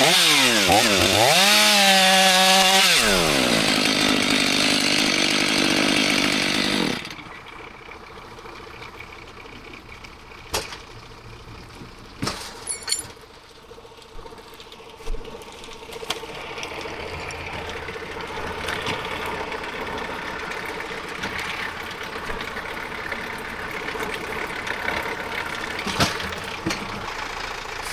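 Chainsaw running under load in a cut, its engine note dropping and rising as it works through the wood. It stops suddenly about seven seconds in, leaving a quieter steady engine hum with a few sharp knocks.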